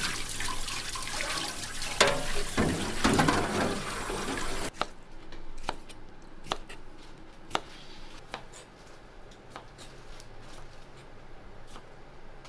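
Water running from a kitchen tap into a sink, cutting off suddenly about five seconds in; then scattered light clicks and knocks.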